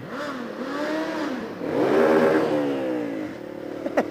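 Motorcycle engine revving up and down several times, loudest about two seconds in, with a few sharp cracks near the end.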